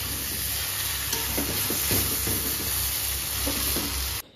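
Pieces of duck meat sizzling in hot oil in a kadai, stirred and turned with a spatula that knocks and scrapes against the pan. The sizzle cuts off suddenly near the end.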